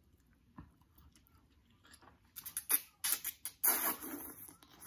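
Spicy instant noodles being slurped into the mouth: a few short slurps about halfway in, then one longer slurp near the end.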